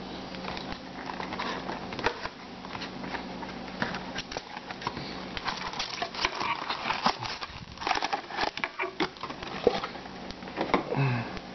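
Foil-wrapped trading-card packs rustling and clicking as they are slid out of their cardboard box and stacked on a tabletop, with the box handled alongside. The clicks come irregularly and are busiest in the middle, over a steady low hum.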